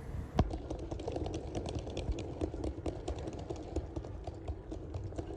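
Rapid, irregular clicking and rattling, several clicks a second, over a low rumble, starting with a sharp knock about half a second in.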